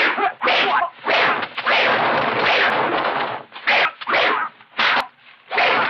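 Kung fu film fight sound effects: swishing whooshes of punches and kicks cutting the air, mixed with sharp slap-like hits. The first half is a long run of swishing, and the second half has quicker short swishes.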